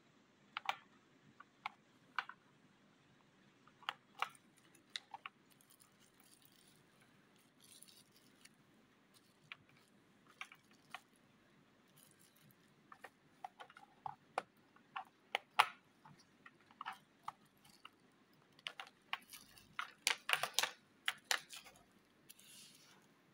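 Clear plastic snap-lid boxes being handled and opened, and bubble wrap crinkling in the hands. It comes as scattered sharp clicks and crackles, densest about twenty seconds in.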